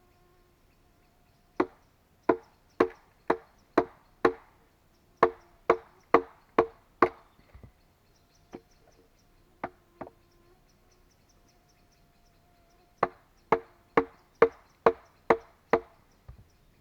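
Repeated sharp blows of a tool striking wood, about two a second, in three runs of five to seven strokes with a few single blows between. Each blow rings briefly.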